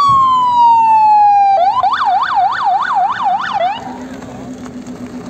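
Loud electronic vehicle siren: a long wail sliding down in pitch, then switching about a second and a half in to a fast yelp of about three rises a second. It cuts off suddenly near the end, leaving a low steady hum.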